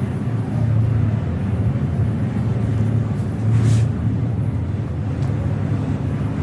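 Steady low rumble of background noise, with a few faint ticks and a short, louder thump about three and a half seconds in.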